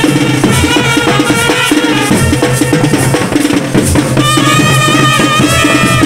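Live festival band music: loud, fast drumming on a steady beat, with a higher melody line held over it that grows stronger in the second half.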